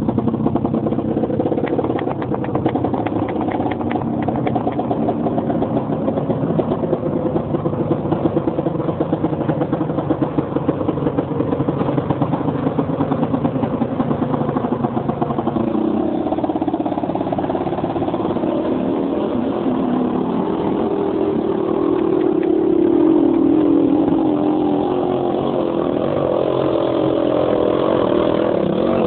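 1985 Honda ATC 250R three-wheeler's two-stroke single-cylinder engine running and revving as the trike pushes through deep water inside a concrete culvert, getting louder about three-quarters of the way through.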